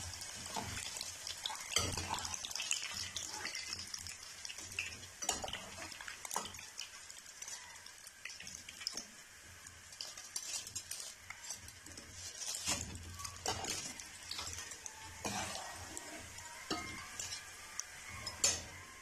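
Hot oil sizzling in a pan as breadcrumb-coated veg balls finish deep-frying, with scattered clinks and scrapes of a steel slotted skimmer against a wire-mesh spider strainer and the pan as the golden balls are lifted out. The loudest clink comes near the end.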